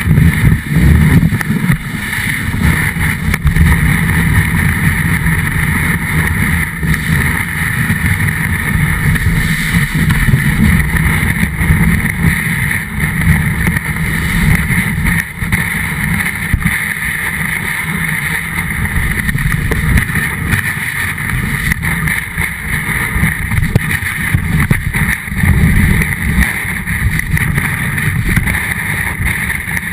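Snowboard sliding and carving over snow, heard through a camera mounted on the board: a continuous rough rumble and hissing scrape, with wind buffeting the microphone.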